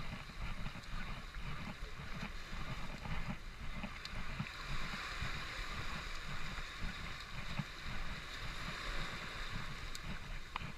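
Ocean surf washing and foaming over shoreline rocks, a steady rushing, with wind buffeting the microphone in low gusts.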